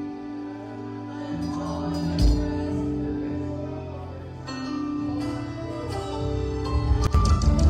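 Music: sustained chords held over a steady bass, with a single hit about two seconds in and a flurry of quick percussive strikes near the end.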